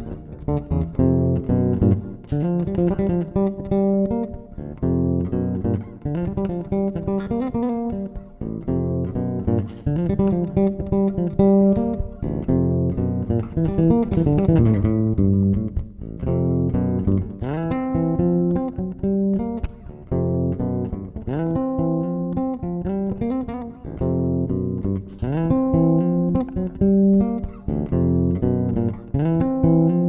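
Five-string electric bass played solo through the Basswitch IQ DI's preamp and EQ channel: a continuous line of plucked notes, with a few pitch slides and some sharp, bright note attacks.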